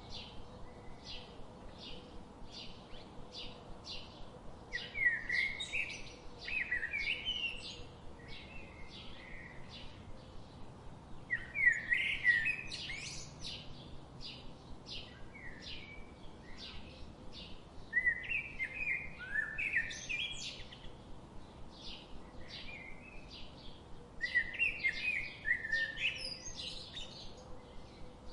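Songbirds chirping: a steady run of short, high chirps about two a second, with louder warbling song phrases breaking in every few seconds.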